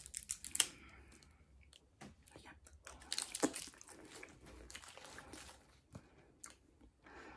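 Chewing and crunching on a Toxic Waste sour hard candy in the mouth close to the microphone: scattered wet clicks and crunches, loudest about three seconds in.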